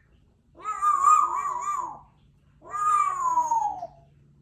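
Two long meows, about a second apart, the second sliding down in pitch.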